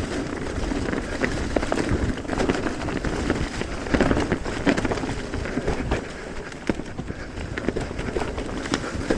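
Electric mountain bike riding over a rough trail: continuous tyre rumble on dirt with frequent sharp knocks and rattles from the bike over bumps.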